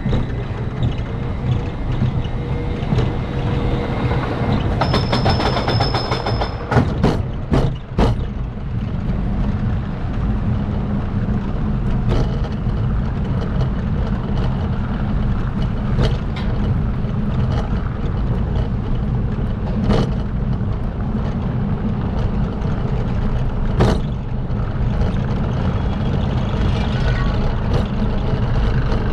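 Roller coaster train rolling out of the station and climbing the lift hill, heard as a steady low mechanical rumble. A brief high tone sounds about five seconds in, a quick run of sharp clacks follows a couple of seconds later, and after that a single sharp click comes about every four seconds.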